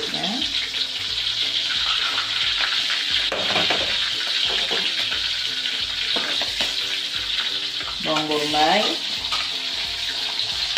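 Chopped garlic and onion sizzling in hot oil in a steel wok, with a metal spatula stirring and scraping the pan. A short voice-like sound is heard in the background near the end.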